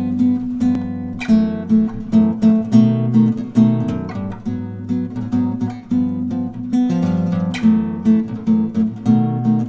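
Outro music: an acoustic guitar playing a steady run of picked and strummed notes.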